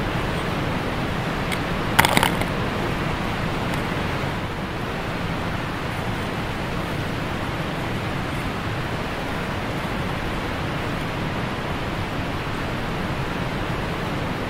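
Steady rushing of river current around an inflatable raft, heard from its bow. There is a short, loud crackle about two seconds in.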